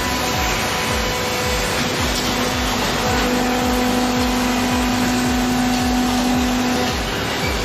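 Heavy scrapyard machinery running steadily, with a steady hum that comes in about three seconds in and stops near seven seconds.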